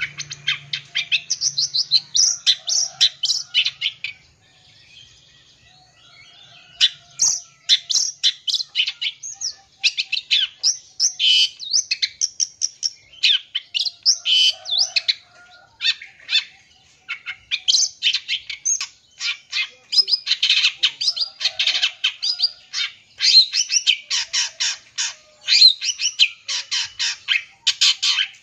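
Long-tailed shrike (cendet) singing a fast, varied chattering song packed with mimicked phrases of other birds, pausing briefly about four seconds in before carrying on almost without a break.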